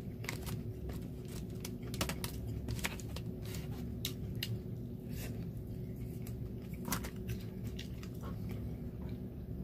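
Close-up eating sounds: irregular small clicks and mouth smacks as a person chews beef noodle soup picked up with chopsticks.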